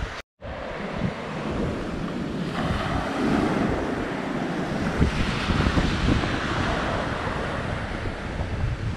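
Wind buffeting the microphone over surf washing on a beach, with the sound dropping out for a moment just after the start.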